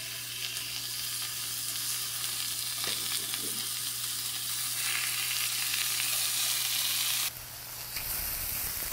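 Korean beef striploin and shiitake mushroom pieces sizzling on a hot round grill pan: a steady hiss, with a few light taps about three seconds in, dropping in level about seven seconds in.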